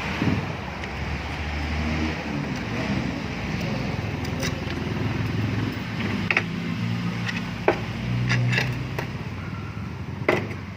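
Steady low motor hum, with about five sharp metallic clinks from transmission parts being handled during a teardown.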